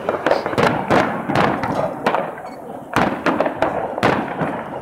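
Fireworks going off across a city: a dense, irregular run of bangs and pops over a continuous crackle. The loudest bangs come about a second in, at three seconds and at four seconds.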